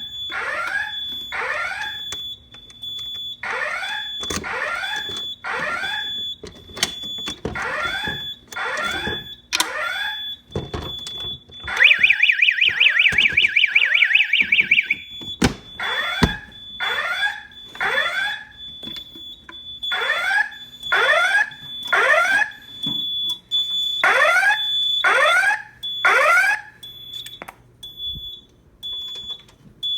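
Simplex 4004/4010 voice-evacuation fire alarm system sounding its alarm tone: repeated falling pitch sweeps, about one a second, over a steady high-pitched tone. For about three seconds in the middle a fast warbling tone cuts in over them.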